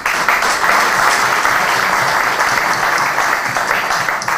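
Audience applauding: dense, steady clapping of many hands that starts all at once and dies away near the end.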